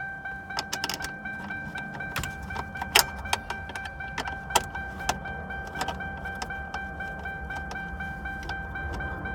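2006 Lincoln Town Car's warning chime beeping steadily, several times a second, with sharp metallic clicks and clinks, the loudest about three seconds in and again a little later. The owner suspects the chime keeps going because everything behind the dash is disconnected.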